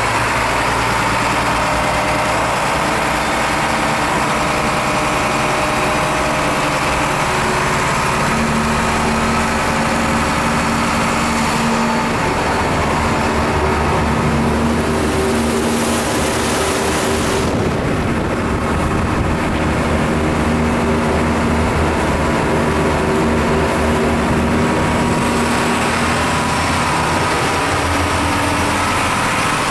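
Newly installed Volvo Penta inboard boat engine running steadily with the boat underway, over the rush of water from the hull and wake. A louder rush of noise comes for a couple of seconds midway.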